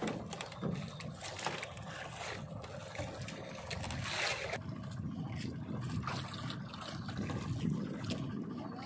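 Sea water splashing and sloshing against the side of a small outrigger boat as a handline catch is worked at the surface, with a louder splash about four seconds in.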